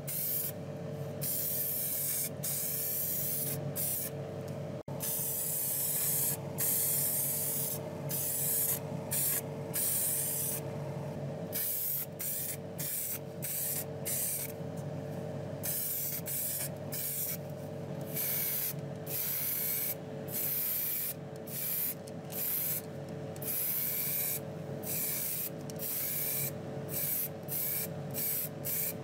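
Aerosol spray paint can hissing in short bursts, about one a second, as diecast toy parts are painted, over a steady low hum.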